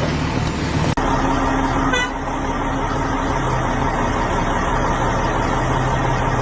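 A vehicle or machinery engine running steadily, with a short horn-like beep about two seconds in.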